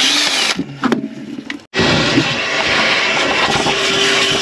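Power drill boring a hole through the boat's structure: it runs, winds down about half a second in, then starts up again and runs steadily with a faint whine near the end.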